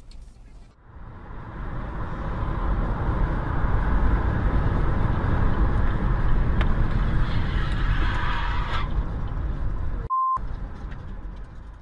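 Steady road noise of a car driving on a highway, a low rumble of tyres and engine as heard from the car. A short high beep cuts in briefly about ten seconds in.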